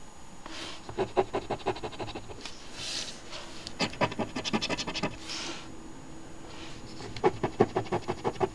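A coin scratching the latex coating off an instant lottery scratch ticket, in three bouts of rapid back-and-forth strokes, with short hisses between the bouts.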